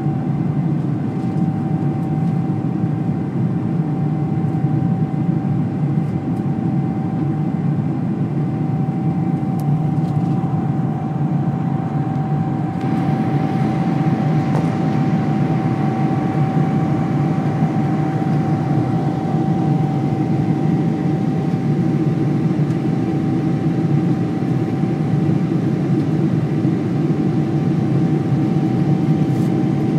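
Jet airliner cabin noise during the climb: a steady low rumble of engines and rushing air with a thin, steady hum running through it. About 13 seconds in, a brighter hiss joins and stays.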